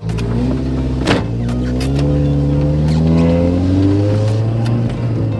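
Supercharged 2007 Chevrolet Cobalt SS's four-cylinder accelerating hard, its engine note and supercharger whine rising steadily in pitch for about four seconds, then levelling off. There is a short sharp knock about a second in.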